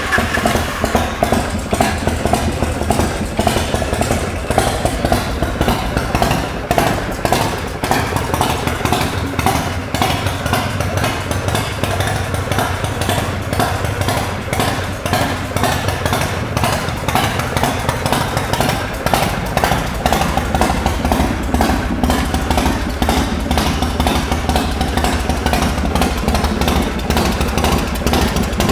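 100 cubic inch Ultima V-twin of an American Thunder Prostreet custom motorcycle idling on choke just after a cold start, a loud, steady, fast-pulsing beat through chrome exhaust pipes. Its low tone drops a little about two-thirds of the way through.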